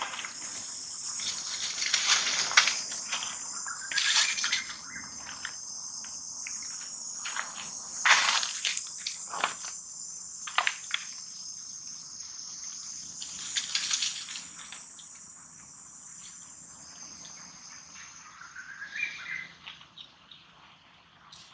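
A steady, high-pitched insect chorus drones throughout and fades near the end. Dry leaves crackle and rustle sharply a few times as the monkeys move about, loudest about two and a half seconds and eight seconds in.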